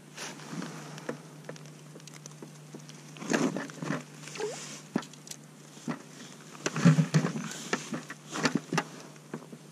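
Irregular crunches, taps and rustles of a smelt being swung in and unhooked on snow-covered ice, loudest about three and a half and seven seconds in, over a steady low hum.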